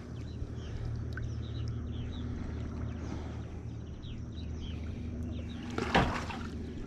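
Boat motor running with a steady low hum, while birds call with many short falling chirps. A brief burst of noise, the loudest moment, comes about six seconds in.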